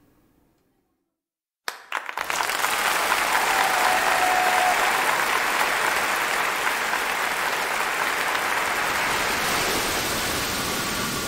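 Audience applause: after a short near-silence, a few claps break out about two seconds in and swell at once into full, steady applause that eases off slightly near the end.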